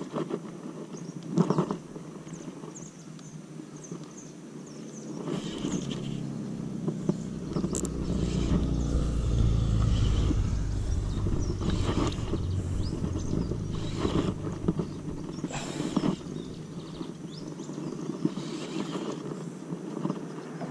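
Low, steady rumble of wind buffeting the camera microphone, building about five seconds in and strongest around ten seconds. Over it come scattered clicks and knocks from a baitcasting reel being wound and rod handling while a fish is fought from the kayak.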